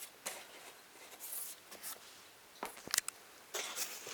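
Cardboard box and packaging being handled: scattered light scrapes and rustles, with a few sharp clicks and taps about three seconds in.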